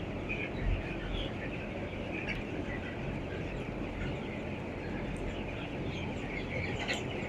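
A large flock of 18-day-old broiler chickens giving a steady din of many soft overlapping chirps and clucks.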